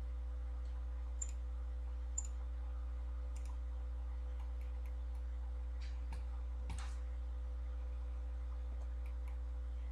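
A few faint, scattered computer mouse clicks over a steady low hum.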